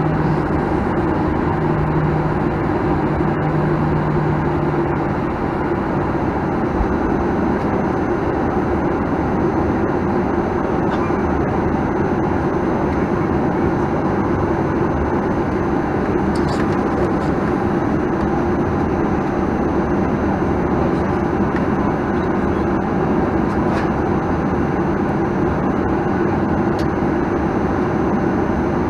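Steady cabin noise inside a Boeing 737-900ER with its CFM56-7B engines running. A low hum fades out in the first few seconds, and a faint high whistle comes in about six seconds in.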